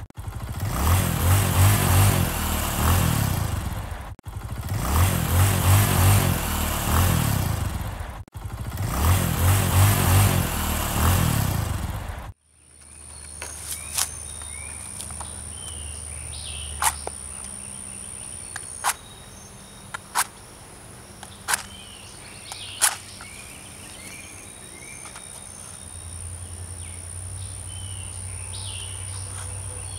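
Hand-held torch blasting its flame into damp kindling that will not catch, a loud rough rumble in three stretches of about four seconds that cuts off about twelve seconds in. After that a steady high insect whine carries on, with faint bird chirps and about six sharp clicks spread over the next ten seconds.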